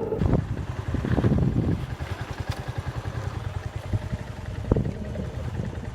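Motorcycle engine idling with a fast, even putter after its revs drop at the start, with a few knocks and a clatter over it.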